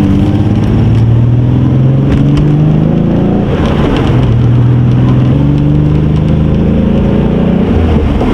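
Nissan R32 Skyline GT-R's RB26 straight-six running while the car is driven, misfiring; its note rises and falls gently. The owner suspects loose wiring or the stock injectors he has just fitted.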